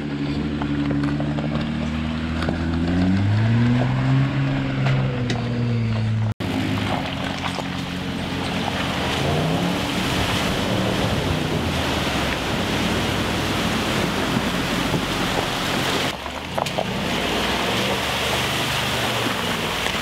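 Off-road SUV engines running, the note rising and falling about three seconds in. After a cut, a Range Rover Sport ploughs through deep flood water: water rushing and splashing over the engine. After a second cut near the end, engine running again.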